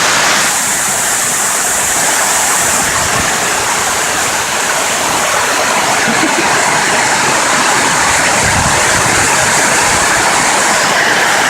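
Heavy rain heard from inside a large shed: a loud, steady rush of noise that never lets up.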